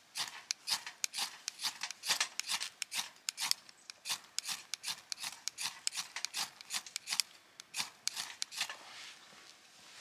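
Rhythmic rasping, scraping strokes, about three a second, that thin out and fade near the end.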